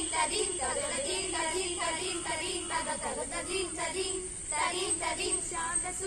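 A small group of school students singing a Malayalam patriotic song together in unison, with sustained held notes.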